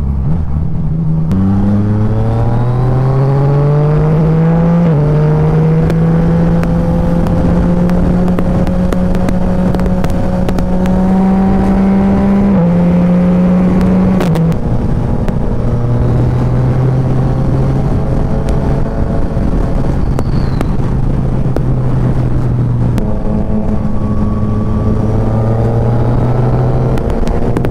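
Yamaha Tracer 900 GT's three-cylinder engine on the move, with wind noise. The revs climb for a few seconds and drop at an upshift about five seconds in. The engine then runs steadily and settles to lower revs around the middle.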